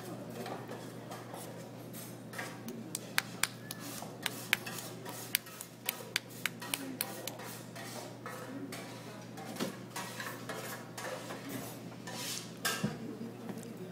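Dishes and cutlery clinking in a buffet restaurant: scattered sharp clinks, densest in the first half, over a steady low hum.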